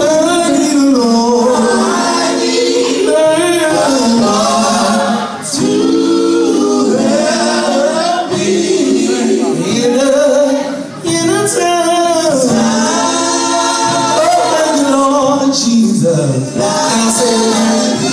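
Male gospel vocal group singing live.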